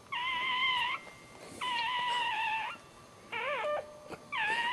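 Newborn puppy crying in high, mewing squeals, about four cries in a row with short pauses, the third one shorter and wavering.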